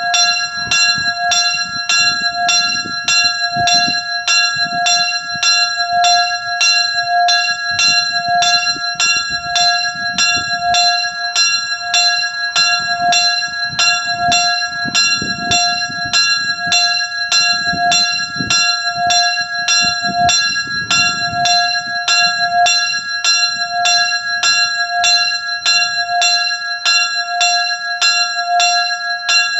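Small bronze church signal bell (sygnaturka) swinging and ringing, its clapper striking about twice a second in an even rhythm, each stroke ringing on into the next.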